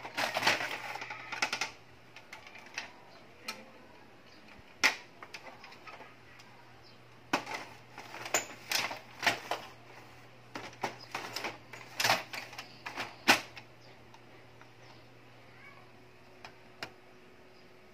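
Hard plastic clicks, knocks and clatter from handling a Brother DCP-T700W inkjet printer: its output tray and paper cassette being lifted, slid and snapped into place, and its control-panel buttons pressed. The knocks come scattered, with a thick cluster of clicks in the middle and a few small ticks near the end.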